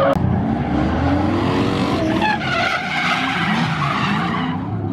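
Drift cars' engines revving up and down in repeated rising and falling sweeps, with tyres skidding and squealing as the cars slide sideways.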